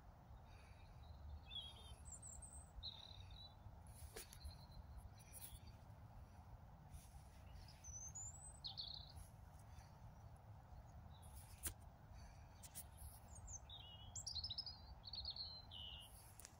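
Faint bird calls: scattered short chirps and quick sweeping notes, more of them near the end, over a low steady rumble of background noise. A couple of sharp clicks, the loudest about twelve seconds in.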